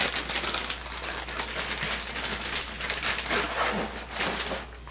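Rustling and crinkling of handled packaging, a dense run of small crackles close to the microphone that dies down near the end.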